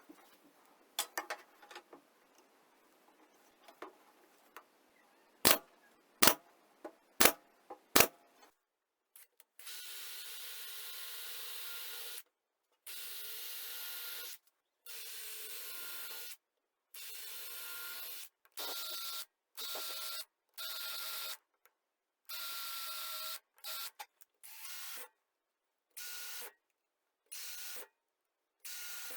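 Four sharp knocks in quick succession, then a series of short stretches of a small power tool running steadily with a constant whine, each cut off abruptly.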